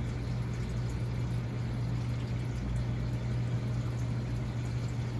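Jebao DCP-13000 DC aquarium return pump running with a steady low hum and water churning, while its flow setting is being turned up.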